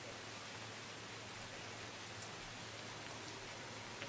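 Steady rain falling: an even hiss with a few sharp, louder drop ticks, one about two seconds in and another near the end.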